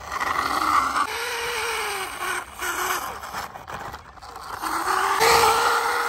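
Plastic wheels of a toy cement mixer truck rolling and scraping over rough concrete as it is pushed by hand, with a wavering whine over the grinding. The sound dips briefly about four seconds in and comes back louder.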